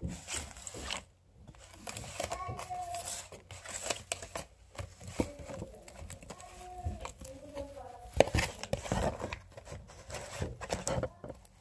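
Paper and plastic packaging rustling and crinkling, with irregular clicks, as clip-in synthetic hair extensions and their metal clips are handled. Faint voices in the background.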